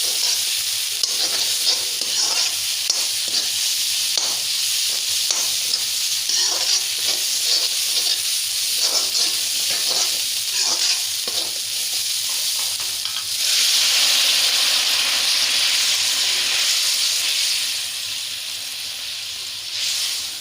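Spice paste frying in hot oil in a pan, sizzling steadily under repeated scraping strokes of a spatula. About 13 seconds in the sizzle surges louder and denser for several seconds, then eases, as hot water goes into the fried masala.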